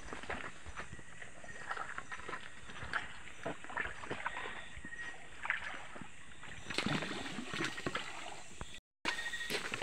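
People wading through shallow river water, with irregular sloshes and small splashes from their steps.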